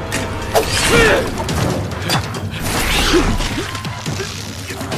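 Film sound effects of a sea monster's tentacle attacking: sharp knocks and clatter mixed with creaking and ratcheting mechanical sounds and short rising-and-falling squeals.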